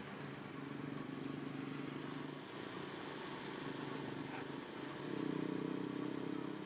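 Steady low hum of a running engine, swelling louder for about a second and a half around five seconds in.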